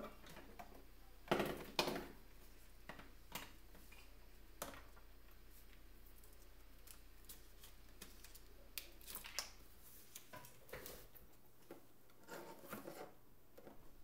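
Hands handling small tools and a phone circuit board on a cardboard box: scattered light clicks, taps and rustles, with two louder knocks about a second and a half in. A faint low hum runs underneath and stops about ten seconds in.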